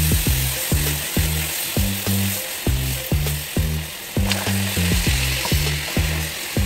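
Caramel of melted sugar with milk just poured in, boiling and sizzling in a pan. Background music with a steady beat and bass runs over it and is the loudest sound.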